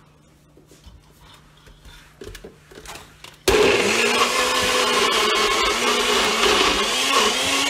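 Nutribullet blender switching on abruptly about three and a half seconds in and running loud as it churns frozen butternut squash chunks in coconut milk, its motor pitch wavering. Before it starts, a few faint clicks and knocks of the cup being handled.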